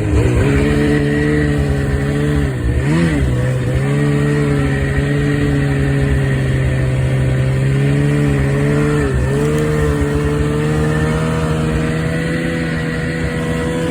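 A motor vehicle's engine running steadily, its pitch dipping briefly and climbing back about three seconds in and again about nine seconds in.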